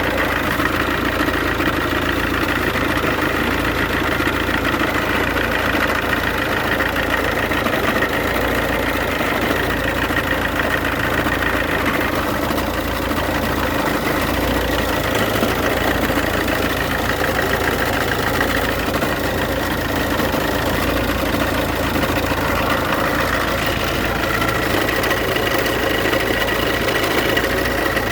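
Iveco Daily diesel engine idling steadily, with a steady high-pitched whine running over the engine note.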